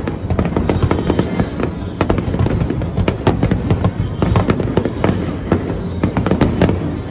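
Aerial fireworks bursting in quick succession: a dense stream of bangs and crackles over a continuous low rumble, with heavier booms about once a second.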